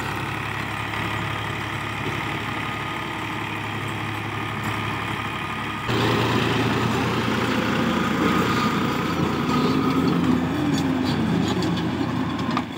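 Ghazi tractor's diesel engine running steadily under load while it drives a rotavator (rotary tiller) through dry soil. About six seconds in the sound becomes louder and closer.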